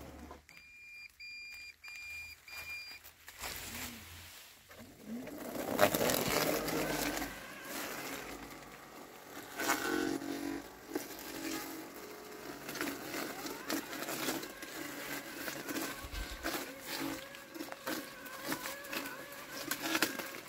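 Landxcape 790 robotic lawn mower giving four short high beeps, then running through weeds and fallen leaves: rustling and crackling of stems and leaves under its wheels and blade, with a steady motor tone from about halfway in.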